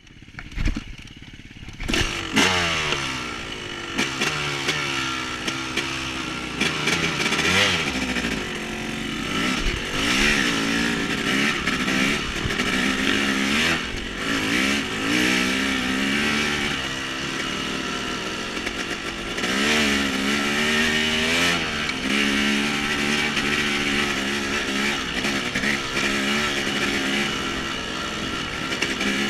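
Small off-road vehicle engine running under riding throttle, its pitch climbing and falling again and again as it revs up and eases off.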